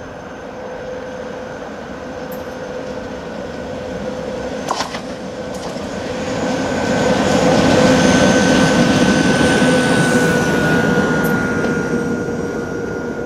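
PKP Cargo ET22 six-axle electric freight locomotive running light, without wagons, approaching and passing close by. A steady whine and rumble swell to a peak about 8 seconds in and then fade. The whine drops slightly in pitch as it goes past, and there is one sharp click about 5 seconds in.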